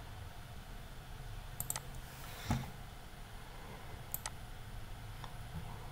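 Computer mouse clicks: a pair of sharp clicks about a second and a half in and another pair about four seconds in, with a soft thump between them and a faint tick near the end, over a low steady room hum.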